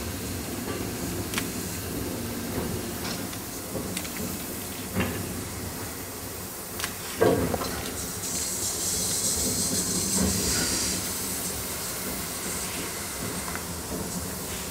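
Steam locomotive moving slowly, hissing steam, with scattered metallic clanks; the loudest clank comes about seven seconds in, followed by a stronger high steam hiss for about three seconds.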